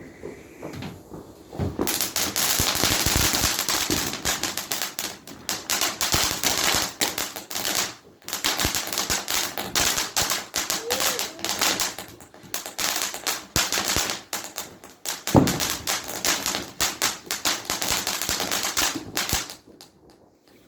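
A firework going off in a long run of rapid crackling bangs, starting about two seconds in and stopping shortly before the end, with brief breaks every few seconds. One bang about three quarters of the way through is louder than the rest.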